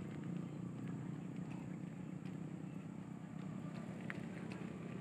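Komatsu PC78US mini excavator's diesel engine idling steadily, with a few light clicks near the end.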